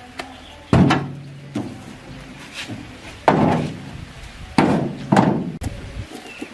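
Four heavy knocks at uneven intervals, each trailing off in a short ringing decay, the first about a second in and two close together near the end.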